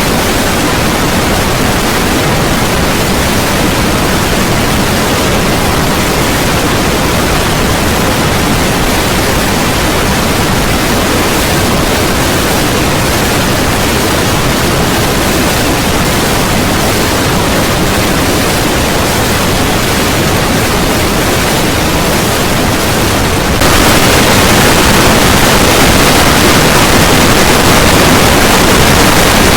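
Loud, harsh static-like noise spread evenly across all pitches, with no tone or rhythm in it. It steps up louder and brighter about three-quarters of the way through.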